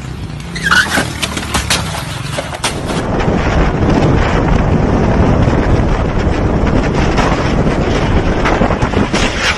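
A motorcycle running on a street with a quick string of sharp cracks in the first few seconds, then, from about three seconds in, a steady loud rush of wind buffeting a microphone mounted on a motorcycle cruising at highway speed, its engine under the wind noise.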